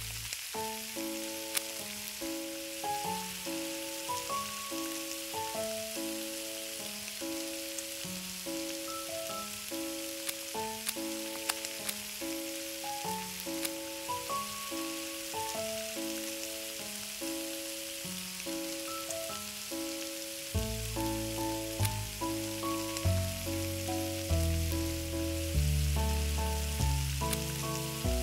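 Bread frying in fat on a small griddle, a steady sizzle, under background music of short repeated melody notes; deeper bass notes join about two-thirds of the way through.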